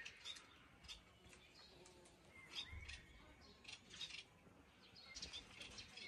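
Faint, short chirps from a small bird, a few scattered calls spread over several seconds. A brief soft low thud comes a little under three seconds in.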